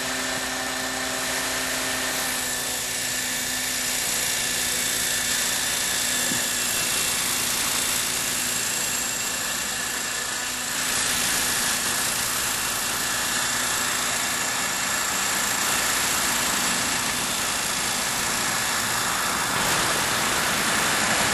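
Radio-controlled model helicopter running and hovering, a steady high whine of its motor and spinning rotors with several held tones.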